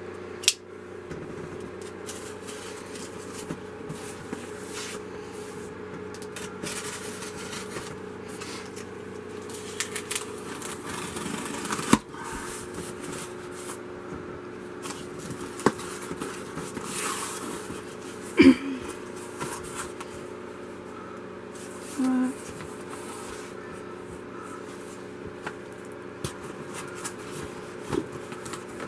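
A cardboard shipping box being opened and unpacked by hand: scraping and rustling of cardboard flaps and tape, and scattered clicks and knocks as the knife boxes inside are shifted, the loudest knock about two-thirds through. A steady low hum runs underneath.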